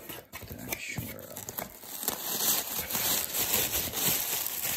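Crumpled packing paper crinkling and a cardboard shipping box's flaps rustling as the box is opened and its paper stuffing pulled about, a continuous crackly rustle that grows busier after the first second or so.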